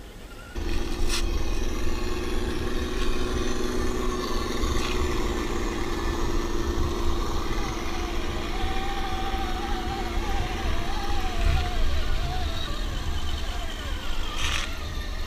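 Radio-controlled scale crawler trucks driving over dirt and rock, with a steady hum and a fainter motor whine that wavers up and down in pitch through the middle, over a low rumble on the microphone.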